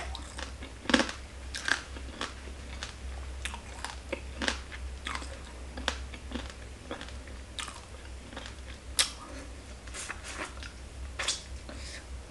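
Close-miked chewing of a mouthful of green papaya salad: irregular wet smacks and crunches, roughly one a second, over a steady low hum.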